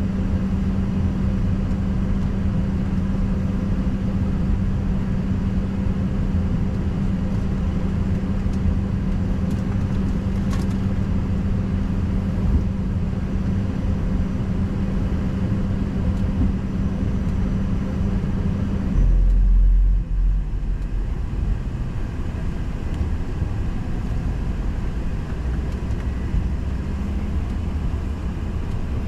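Steady cabin hum of an Embraer ERJ-145 waiting at the gate, a low drone with a steady tone that cuts off about two-thirds of the way through. The cut-off is followed by a brief, louder low rumble, and then the plain hum goes on.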